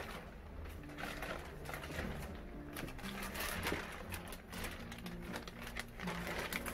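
Thin plastic bag rustling and crinkling in repeated short crackles as it is handled and lifted over a potted plant.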